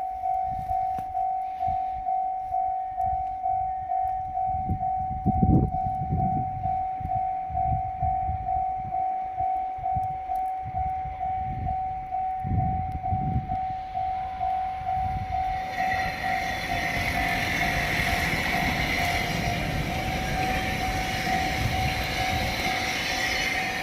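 Railway level-crossing warning bell ringing a steady electronic ding, nearly twice a second. About sixteen seconds in, the rushing wheel and body noise of a passing limited express train rises and carries on under the bell.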